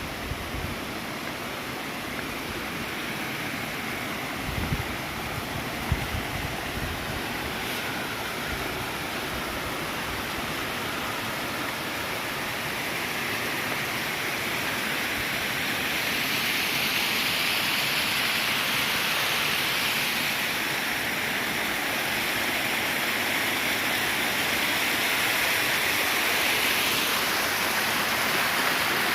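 Rushing water from a waterfall or fast stream, a steady hiss that grows louder and brighter through the second half. A couple of brief low thumps come about five and six seconds in.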